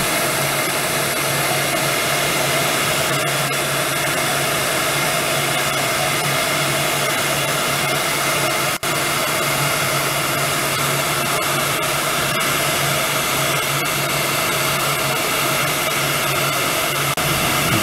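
Handheld heat gun running steadily, its fan blowing with a constant low motor hum, as it shrinks heat-shrink tubing onto an antenna. A split-second break near the middle.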